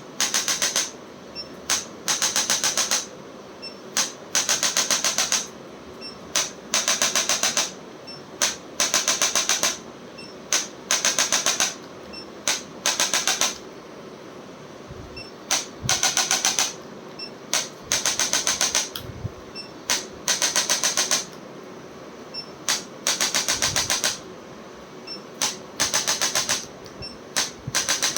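Handheld electronic chiropractic adjusting instrument firing in bursts of rapid clicks, each burst about a second long, repeated every couple of seconds.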